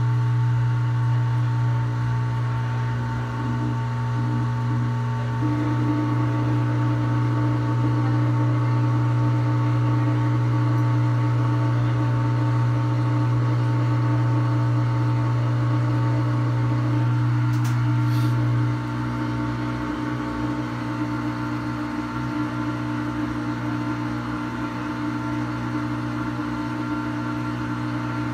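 Samsung top-load washing machine running a step of its Smart Install test mode: a steady low mechanical hum that drops in level about 19 seconds in.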